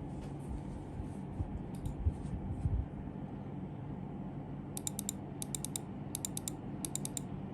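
Typing on a mechanical keyboard with lubed RK Red linear switches (Krytox 205G0), foam- and tape-modded, under Akko ASA keycaps: a few soft, deep keystrokes at first, then quick runs of key presses, several clicks at a time, in the second half over a steady low hum.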